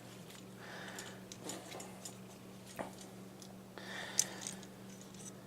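Plastic joints and parts of a Transformers action figure being turned and folded during transformation, giving a few faint clicks and soft handling rustles, over a steady low hum.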